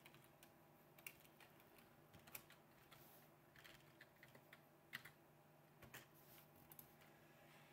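Faint computer keyboard keystrokes: a handful of separate clicks spaced roughly a second apart.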